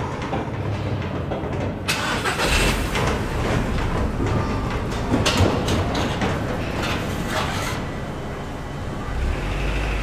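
Old Otis car elevator cage moving down its shaft. A steady low machinery hum runs under rattling and clanking of the cage, which grows busier from about two seconds in and eases off near eight seconds.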